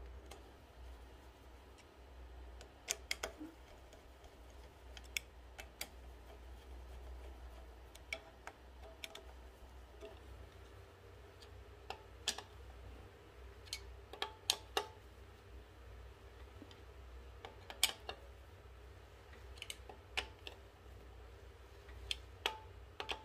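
Irregular sharp metallic clicks and taps of a screwdriver and small screws as an aluminium carburetor adapter plate is screwed down on a scooter engine, over a low steady hum.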